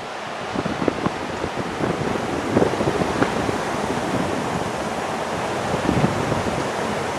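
Wind rushing past a moving ship's deck and buffeting the microphone: a steady rushing hiss broken by irregular low thumps of gusts.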